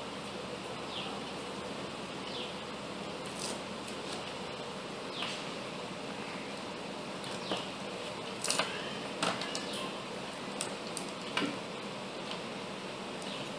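Small clicks and taps from hands handling a circuit board and pressing it onto double-sided tape on the robot car, loudest through the middle and later part, over a steady background hiss. Short, high, falling chirps repeat every second or two behind it.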